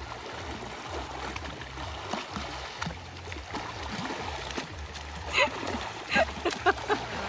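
Shallow river water splashing as a person swims and thrashes through it, over the steady rush of the flowing stream. A few short vocal cries near the end.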